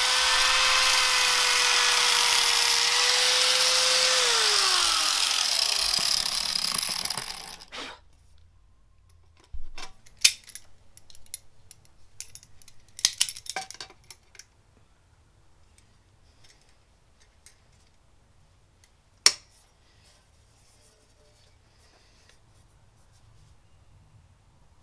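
Angle grinder with a cutting disc running at a steady high whine, then released about four seconds in and spinning down over a few seconds. After it stops come a few sharp knocks and clinks.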